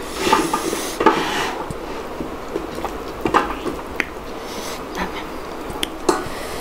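Close-up eating sounds: chewing and wet mouth sounds from hand-eaten millet dhido and chicken curry, with a few sharp light clicks, like fingers or a bowl against a plate, scattered through.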